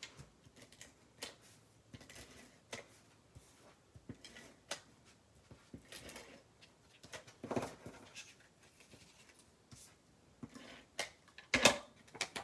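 Handling of cardstock and paper on a craft table: scattered soft taps, rustles and scrapes as pieces are placed and pressed down, with a louder knock about seven and a half seconds in and the loudest one near the end.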